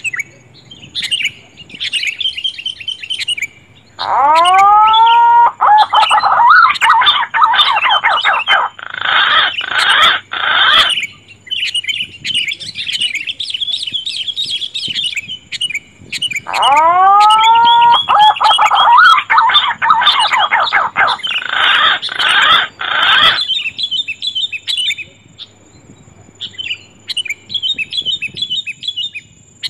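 Bird-lure recording of green pigeon (punai) and sooty-headed bulbul (kutilang) calls, looped. A rising whistled call opens a burst of loud, rapid chirping, and the pattern repeats twice, about 12 seconds apart, over continuous lighter chirping.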